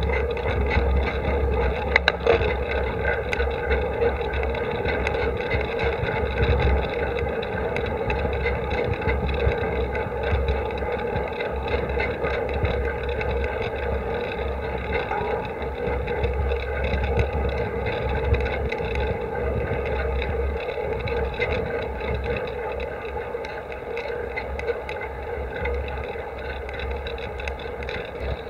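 Steady riding noise of a bicycle on smooth asphalt, heard through a camera clamped directly to the handlebar: gusty wind rumble on the microphone over the hum of slick road tyres and frame vibration, with a few light clicks about two seconds in.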